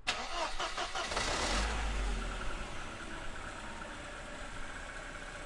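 An engine starting with a sudden, rough burst and low rumble, then settling into a steady idle.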